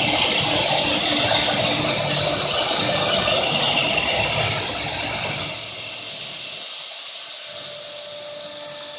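CNC router with a 6 kW HSD spindle cutting into a wooden board: a loud, steady hissing cutting noise with a low rumble. About five and a half seconds in it drops away to a quieter, steady machine whine.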